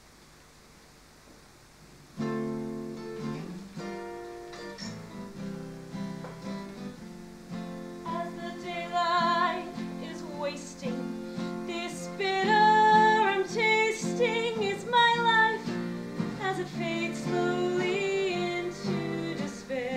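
About two seconds of quiet room tone, then a musical-theatre song starts with instrumental accompaniment. A woman joins singing about eight seconds in, with vibrato on her held notes.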